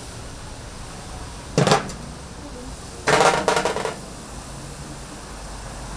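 Two short bursts of clattering of hard objects: a brief one, then about a second and a half later a longer rattling one lasting under a second, over a steady low hum.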